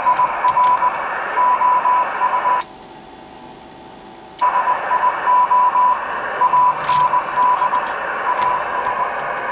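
Icom IC-718 HF transceiver receiving: band hiss from its speaker with a Morse code signal, a single tone keyed on and off in short and long pieces. The hiss drops out for about two seconds roughly three seconds in, then returns.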